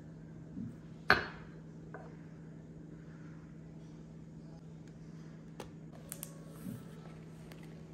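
Quiet kitchen with a steady low hum, broken about a second in by one sharp clink. A few soft taps and knocks follow as the cookbook's pages are handled and the book is lifted.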